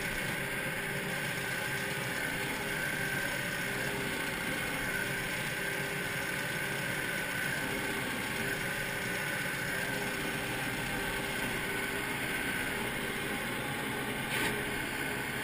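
Compact tractor's engine running steadily as it drives, heard from close on the tractor, with a brief click near the end.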